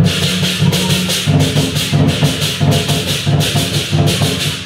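Lion dance percussion: cymbals clashing in a fast, even beat, about three to four strikes a second, over steady drumming.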